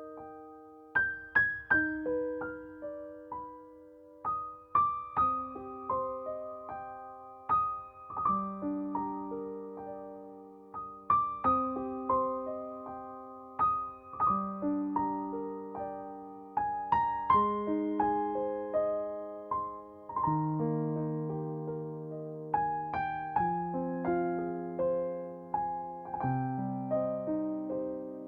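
Background music: a slow, gentle solo piano piece, single notes and soft chords ringing and fading.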